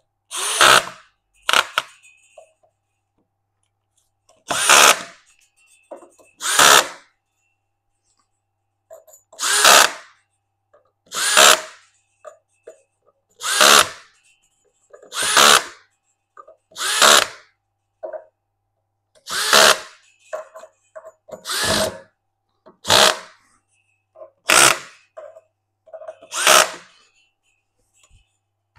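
Power drill on its torque-clutch setting driving in the bolts of a CNC router's Z-axis plate, in about fourteen short bursts with pauses between, as the squared plate is tightened down.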